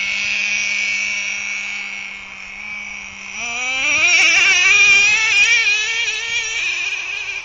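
Nitro RC truck's small glow-plug engine running steadily at low revs for about three seconds, then revving up, its buzzing pitch climbing and wavering with the throttle.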